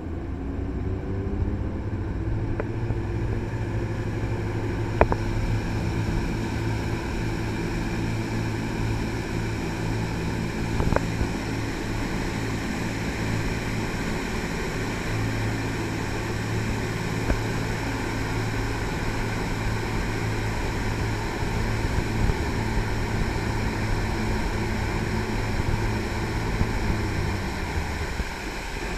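Triple diesel jet boat running steadily under way, a steady engine hum over rushing water and wind noise; the engine tone drops away near the end.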